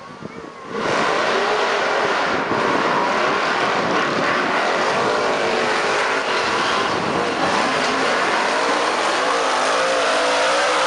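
Monster truck engines revving hard under full throttle as two trucks race up a dirt hill, coming in suddenly about a second in, the engine pitch wavering up and down.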